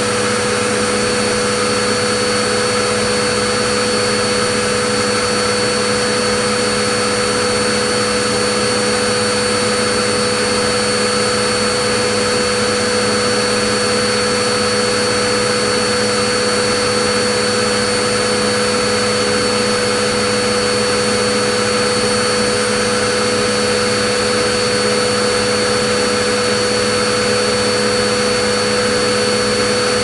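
Vacuum cleaner motor running continuously: a steady rush of air with constant whining tones, unchanging in pitch and loudness.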